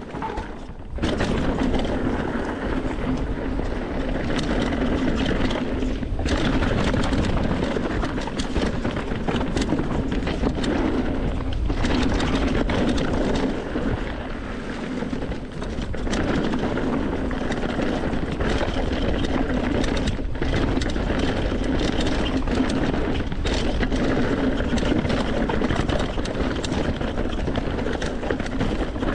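Steady rushing noise of a mountain bike ride, with wind on the microphone over the rumble and rattle of tyres on a trail, dipping briefly a few times.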